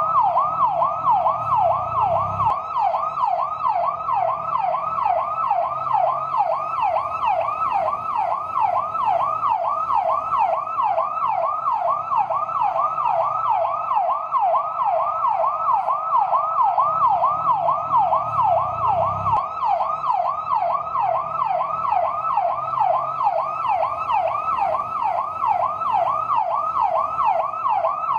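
Fire truck siren on the yelp setting: a fast, steady warble sweeping up and down several times a second without a break. A low rumble sits underneath at times.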